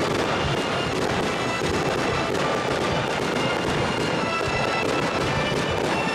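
Aerial fireworks bursting and crackling, with many sharp pops in quick succession, over music with sustained tones.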